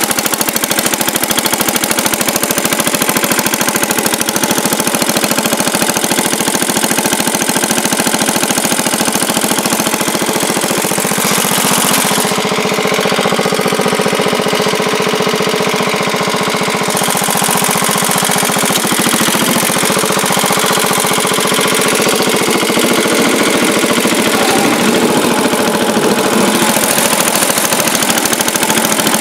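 1967 Sears Suburban 10 garden tractor engine running steadily under load as the tractor pushes snow with its front blade. Its note shifts for a few seconds about halfway through.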